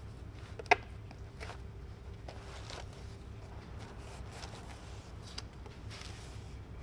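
Soft scattered rustling and brushing as the convertible-top material is handled and coated with contact cement, with one sharp click about a second in, over a steady low hum.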